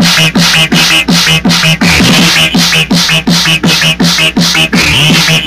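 Fast techno with a hard, steady kick drum, about four beats a second, each kick a short falling thump, over a held low bass note.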